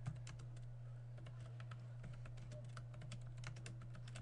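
Typing on a computer keyboard: a run of quick, irregular key clicks over a steady low hum.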